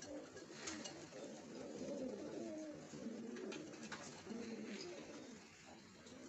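Frillback pigeons cooing: a continuous, low, wavering cooing, with a few faint clicks over it.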